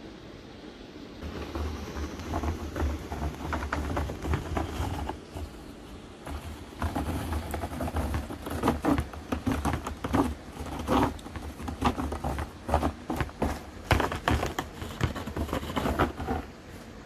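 A cat clawing its scratcher: rapid scratching strokes in two long bouts, with a short pause about five seconds in.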